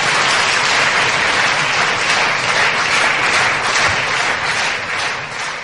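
Audience applauding after a comedy sketch, the clapping thinning out and fading near the end.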